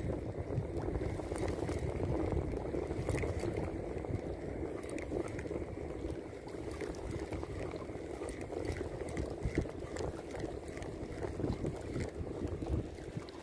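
Shallow seawater lapping and sloshing against the rocks at the shoreline, a steady, irregular wash with small splashes.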